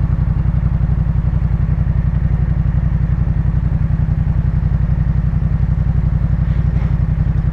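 Yamaha MT-07's 689 cc parallel-twin engine idling steadily through a Jeskap K4 full aftermarket exhaust, a loud, even, rapid pulsing at an unchanging pitch.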